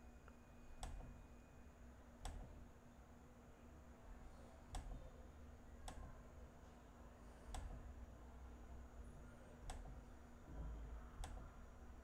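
Near silence: room tone with a faint steady hum, broken by seven faint, sharp clicks, about one every one and a half seconds.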